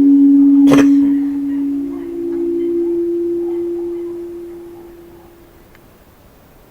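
A long, low droning tone of the so-called 'strange sounds' heard in the sky, held steady, stepping up in pitch about two seconds in, then fading away. A sharp click sounds a little under a second in.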